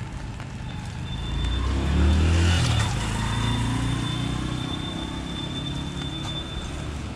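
A car passing on a rain-wet street: engine rumble and tyre hiss swell to a peak about two seconds in, then fade slowly.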